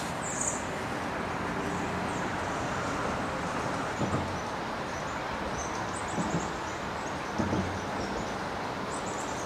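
Steady rushing outdoor background noise with faint, high-pitched bird chirps in short quick series a few times, and a few soft low knocks.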